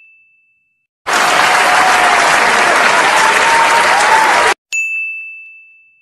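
Crowd clapping for about three and a half seconds, starting about a second in and cutting off abruptly. A single bright ding rings at the start and again just after the clapping, each fading away slowly.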